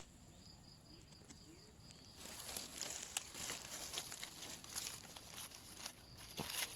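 Footsteps crunching and rustling through dry leaf litter and undergrowth, with many small irregular crackles starting about two seconds in. Before that only a faint high steady tone is heard.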